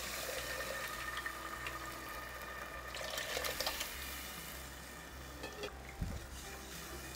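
Cooked mutton and its stock poured from a steel bowl into a pan of fried onion and tomato, with a splash of liquid, then a steel ladle stirring the curry, with a short knock about six seconds in.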